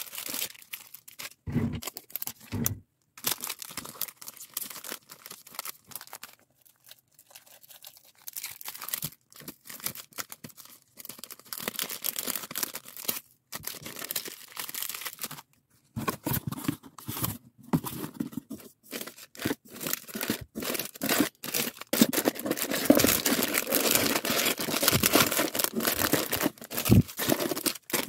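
Clear plastic packaging bags crinkling and rustling as they are handled and packed by hand, in irregular bursts that grow busier and louder through the second half.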